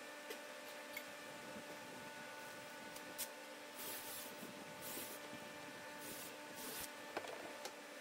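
Faint handling sounds at a wooden workbench: a few light clicks and knocks and several short brushing scuffs, midway through, as cordless drills and lumber are picked up and moved, over a faint steady hum.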